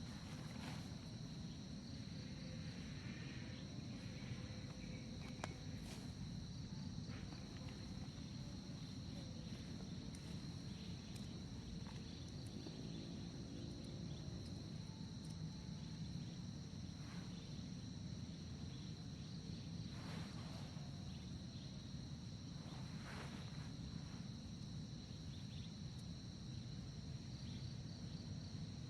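Forest insects singing in a steady high drone at two pitches, over a low rumble, with a few soft clicks and rustles.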